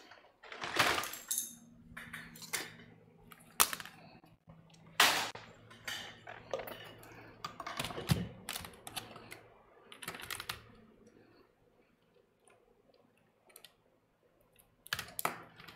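Irregular clicks and light knocks of laptop parts and tools being handled on a repair bench. A faint low hum runs under them and stops about eleven seconds in.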